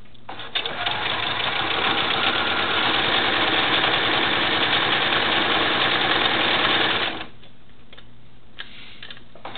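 Electric sewing machine running, stitching in a zipper with a zipper foot: a steady rapid stitching rattle that starts about half a second in and stops suddenly about seven seconds in, followed by a few light clicks.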